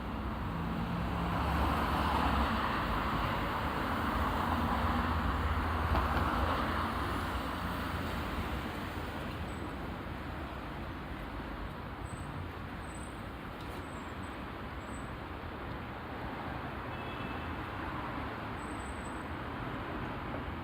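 Traffic at a road intersection: vehicles pass with engine and tyre noise, loudest over the first several seconds. It then settles to a steadier, quieter wash of traffic.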